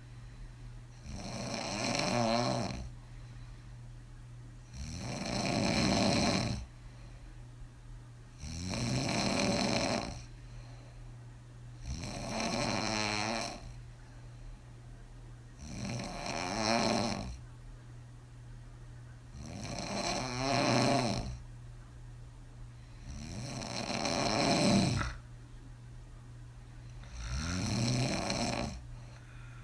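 A woman snoring hard with her mouth open, her lips blowing and flapping on the breath: eight long snores, one about every four seconds.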